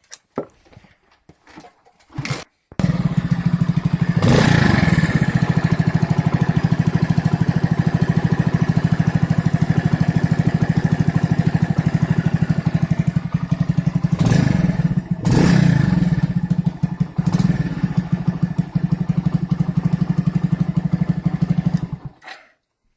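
A moped's small four-stroke single-cylinder engine starts about three seconds in, idles with a steady rapid beat, is revved briefly four times, and shuts off near the end. This is its run after a leaking intake-manifold gasket was re-seated, and the owner believes the air-leak whistle is now gone.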